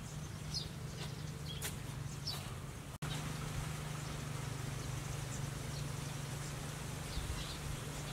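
Outdoor rural ambience: birds chirping now and then in short, high calls over a steady low hum. A brief dropout about three seconds in.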